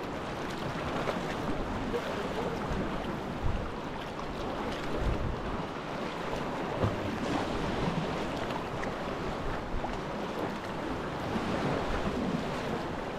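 Sea water lapping and sloshing around a kayak hull and small waves washing over rock ledges, with wind now and then rumbling on the microphone.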